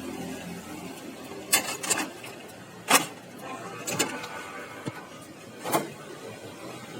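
About five sharp clicks and knocks, spaced irregularly, over a faint steady hum from the Canon iR3245/4570 photocopier: parts being handled while a paper jam is cleared.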